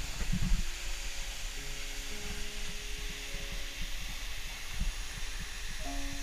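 Steady rushing hiss of a tall waterfall, its water pouring over the lip of the cliff, with wind buffeting the microphone in low thumps.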